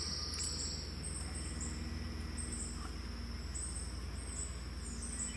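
Insects chirping outdoors in short repeated high-pitched groups over a steady high hiss, with a steady low rumble underneath.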